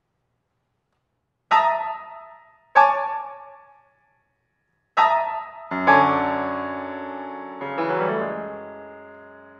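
Piano playing slow, separate chords. Two chords are struck about a second apart and left to ring and fade. After a pause, three more follow, and the last ones are held and die away slowly.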